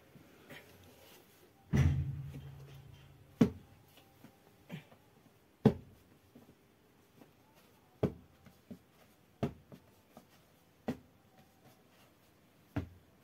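Lumps of bread dough being divided by hand and set down on a flour-dusted cloth on the floor: a string of soft thuds, about one every second or two. The first thud, near two seconds in, is the loudest and rings briefly.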